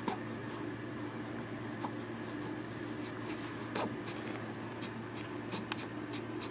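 Steady low hum of room tone with a few faint clicks and rustles scattered through it.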